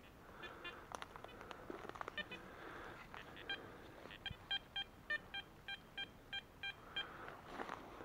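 Garrett ACE Apex metal detector giving short, clear target beeps as its coil is swept over the ground. The beeps come singly at first, then in a regular run of about three a second in the second half, the sign of the detector locking onto a buried metal target.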